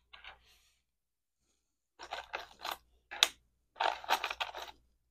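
Loose plastic LEGO pieces clattering and rattling as a hand rummages among them in a cardboard box, in several short bursts.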